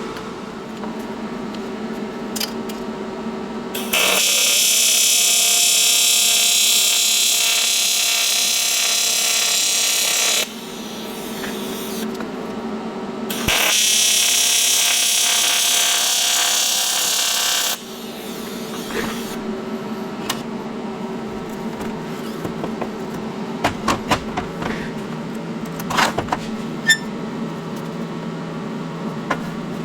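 TIG welding arc buzzing in two runs, one of about six seconds and one of about four, as a blow-off valve flange is welded onto turbo intercooler piping. A steady hum runs underneath, and a few light clicks follow near the end.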